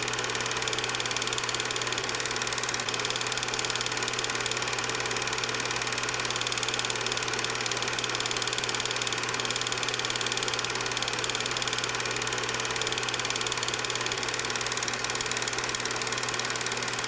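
8mm film projector running steadily: motor hum with the mechanical whir of the film transport.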